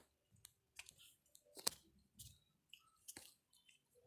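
Near silence broken by faint, irregular clicks and rustles, the sharpest about one and a half seconds in.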